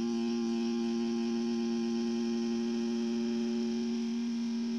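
Two steady pure sine tones, 232 Hz and about 349 Hz, from a phone oscillator app played together through a small speaker with a balloon membrane. Near the end the higher tone creeps slightly up in pitch, toward about 364 Hz.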